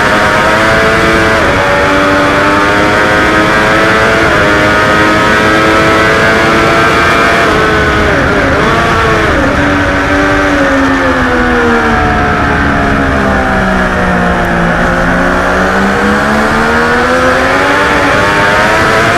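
Triumph Daytona 675R's inline three-cylinder engine at race speed with heavy wind rush, heard from the bike itself. It climbs through gear changes in the first few seconds and falls off with a brief wobble about halfway. It then drops steadily in pitch for several seconds before rising again as it is driven hard once more.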